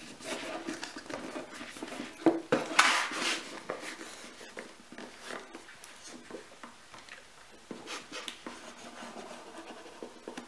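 Hands pressing and rubbing glued paper down onto cardboard: irregular rustles and light scrapes, the loudest rubbing a few seconds in, then quieter handling.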